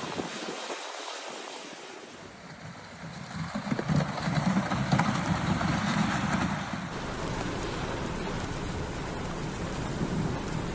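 Heavy rain falling as a steady, noisy hiss. Its character shifts abruptly about two seconds in and again about seven seconds in.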